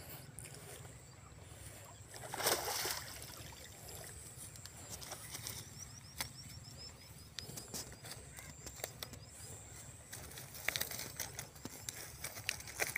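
Quiet open-air ambience: a short rustling burst about two and a half seconds in, scattered light clicks, and a quick run of small high chirps near the middle.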